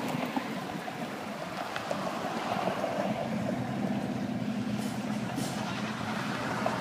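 Road traffic on a busy street, with a vehicle's engine hum swelling in the middle and easing off again over a steady noise of passing cars.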